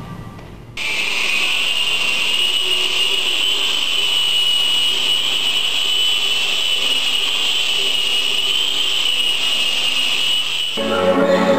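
Electric power tool running at a steady speed with a high whine, starting abruptly about a second in and stopping abruptly near the end.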